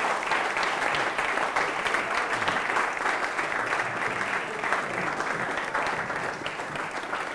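Audience applauding: many hands clapping in a dense, steady patter that tails off slightly near the end.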